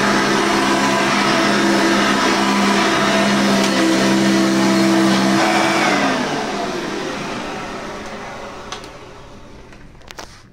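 Hoover upright vacuum cleaner running with a steady motor hum, then switched off about six seconds in, its motor winding down in falling pitch and fading over the last few seconds. A few sharp clicks come near the end.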